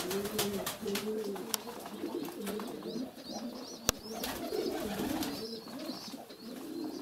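A flock of domestic pigeons cooing in a wooden loft, many overlapping low coos. Faint high chirps come in the middle, and there is a single sharp click about four seconds in.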